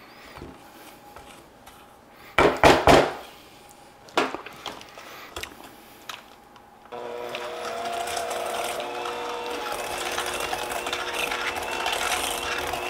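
Knocks and scrapes of utensils against a stainless steel bowl, then about seven seconds in an electric hand mixer switches on and runs steadily, its motor pitch rising briefly as it comes up to speed, beating softened butter and sugar together.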